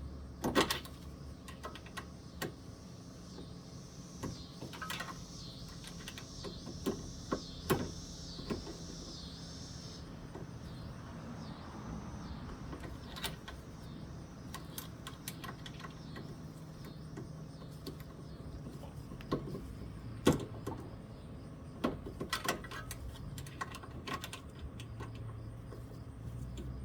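Scattered clicks and light knocks of small tools and carburetor parts being handled during a teardown, irregular and a few seconds apart, over a steady low hum.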